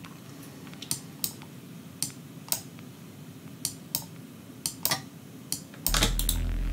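Computer mouse clicking, a dozen or so sharp clicks irregularly spaced, as automation points are placed. About six seconds in, a deep, low synth pad made in Serum starts playing back.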